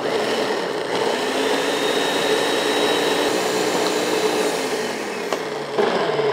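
Countertop blender switched on and running steadily, puréeing diced strawberries into liquid. Its motor pitch falls near the end as it winds down.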